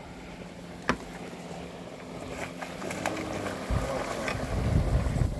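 Water splashing and sloshing against the boat's side as a hooked catfish is brought into the landing net, heavier and lower in the last couple of seconds. A sharp knock comes about a second in, with a few lighter clicks later, over a steady low hum.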